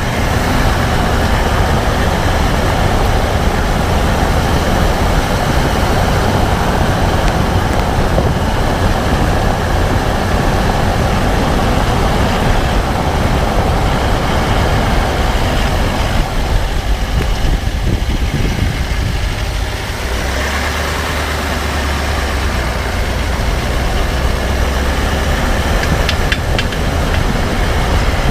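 2014 Range Rover Sport SDV8 running, a steady vehicle noise that settles into a deeper low hum about two-thirds of the way through. A few faint clicks come near the end: the clicking the owner places at the front right wheel.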